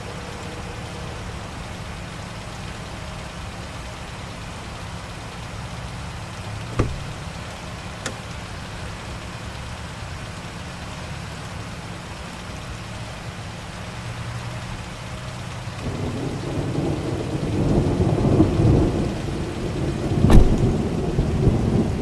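Steady rain with a low steady hum underneath, and two sharp clicks about seven and eight seconds in. From about sixteen seconds thunder rumbles and builds, with a loud crack about twenty seconds in.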